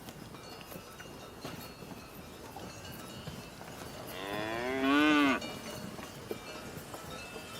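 A cow mooing once, about four seconds in, for just over a second; the call rises in pitch and drops away at the end. Faint background with small clicks around it.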